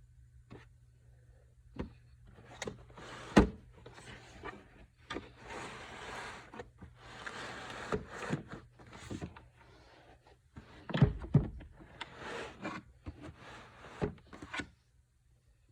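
Hard parts being handled: irregular clicks and knocks, with a few short scraping and sliding stretches and a loud knock about three and a half seconds in, over a faint steady low hum.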